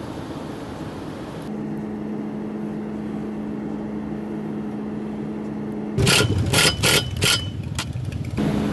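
A cordless drill run in several short, loud bursts, drilling into the aluminum mounting track on the RV roof, starting about six seconds in. Before that there is a steady low hum.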